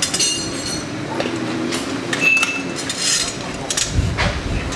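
Steel tyre levers and a spoked dirt-bike wheel clinking against the metal Rabaconda tyre-changer stand during a tyre change: a few sharp metallic clinks with a brief ring, and a dull thump about four seconds in.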